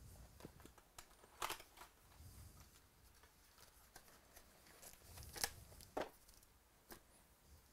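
A trading-card box being opened by hand: faint cardboard and wrapper rustling, broken by a few sharp crinkles and snaps. The loudest come about a second and a half in and about five and a half seconds in.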